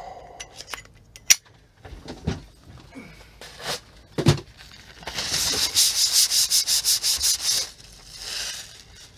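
A few sharp metallic clicks as a Zippo lighter is handled. Then, about five seconds in, a loud rapid rubbing of about six strokes a second for some two and a half seconds, as the lighter is rubbed with a white cloth.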